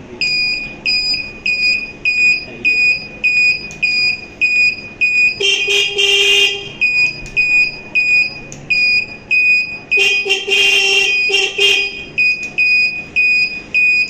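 A turn-signal buzzer on a Honda CD70's wiring harness beeping about three times a second while the indicators flash. The motorcycle's electric horn sounds twice, once about five seconds in and again, a little longer, about ten seconds in.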